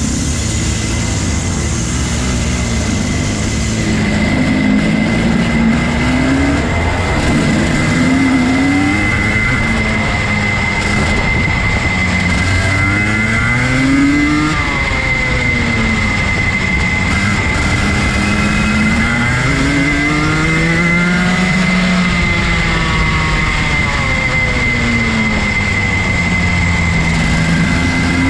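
Rotax Max Junior 125cc two-stroke kart engine heard onboard, its pitch climbing and dropping again and again as the kart accelerates and backs off around the circuit, with a steady high whine underneath.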